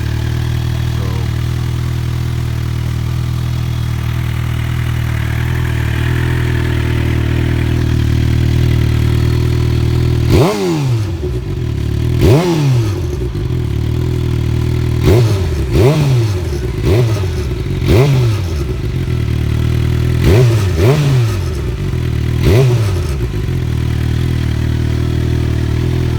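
2019 Suzuki GSX-R750's inline four-cylinder engine through an M4 GP slip-on exhaust, idling steadily at first, then revved with about nine quick throttle blips in the second half, each rising and dropping straight back to idle.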